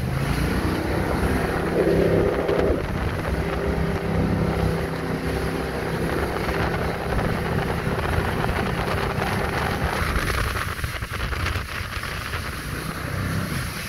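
Jet boat's engine running steadily under way, with wind buffeting the microphone; the sound eases slightly about ten seconds in.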